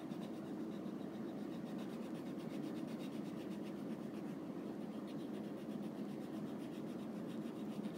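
Colored pencil scratching softly on paper in steady back-and-forth shading strokes as an area of the drawing is filled in.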